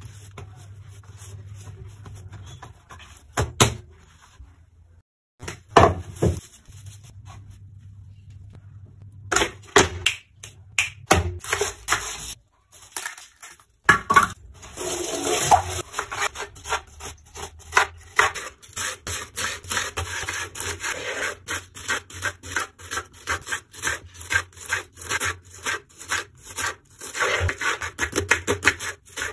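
A kitchen knife cuts an onion on a wooden cutting board: fast, even strokes about four a second through the second half. Before that comes scraping and rustling as the onion is peeled.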